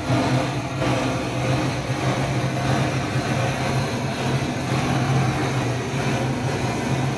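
A steady low machine hum with an even rushing noise over it, running without a break.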